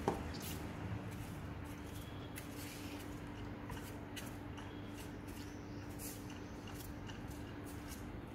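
Dog eating from a bowl: small irregular crunches and clicks of its chewing, with one sharp knock right at the start and a faint steady hum behind.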